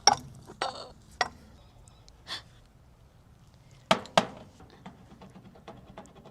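A few sharp knocks and clicks, the two loudest close together about four seconds in, followed by lighter scattered ticks.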